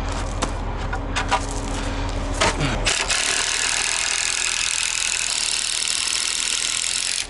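A motor hums steadily under repeated short scraping strokes. About two and a half seconds in, a falling whine; then the hum drops out and a steady hiss takes over until an abrupt cut.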